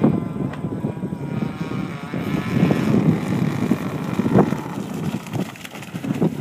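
Radio-controlled hydroplane boat running at speed on the water, its motor a thin whine that rises and falls in pitch. A gusty rumble of wind on the microphone lies under it.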